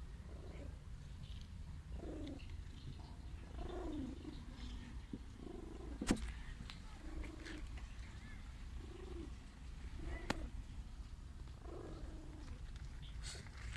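Cat purring steadily, with short low calls now and then and two sharp snaps, the louder one about six seconds in.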